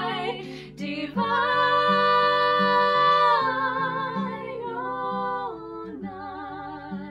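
Two women singing together, accompanied by an acoustic guitar, with one long held note starting about a second in.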